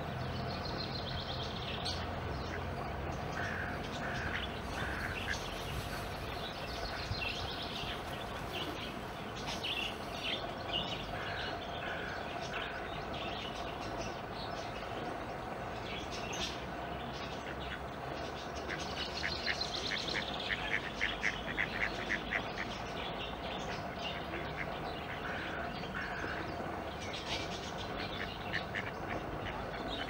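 Waterbirds calling on a pond: short nasal calls scattered throughout, and a fast run of repeated short notes for about three seconds a little past the middle. A steady background hum runs underneath.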